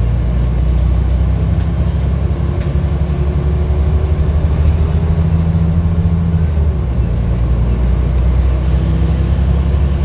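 Volvo B10TL double-decker bus's six-cylinder diesel engine running under way, a low steady drone heard from inside the upper deck, with a faint whine midway.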